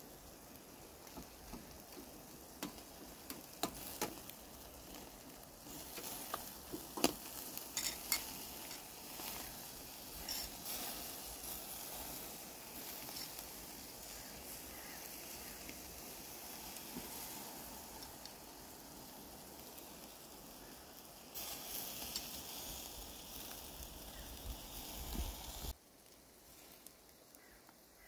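Fish sizzling on a wire grill over oak-wood embers as it is basted with sauce, with scattered sharp pops in the first few seconds. The sizzle grows louder about three quarters of the way through, then cuts off suddenly.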